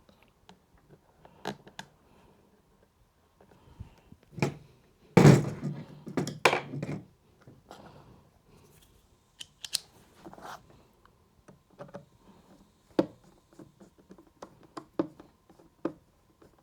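Scattered clicks, knocks and light scrapes of an Uhlmann fencing reel's housing and a screw being handled and fitted during reassembly, with a cluster of louder knocks about five to seven seconds in.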